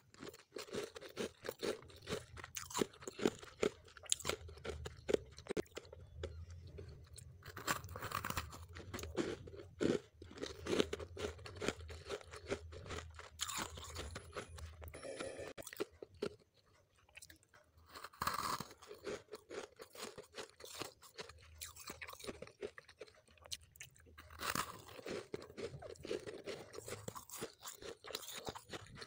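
Someone biting and chewing chunks of refrozen freezer frost: a close, continuous run of crisp, icy crunches with a few louder bites and a short lull a little past halfway.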